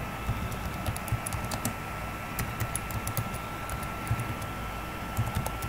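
Typing on a computer keyboard: a run of quick, irregular key clicks with a faint steady tone underneath.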